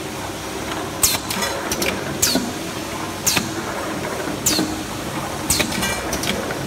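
Automatic tin filling and capping machine running: a steady mechanical hum with sharp metallic clacks about once a second as the tins are indexed and capped.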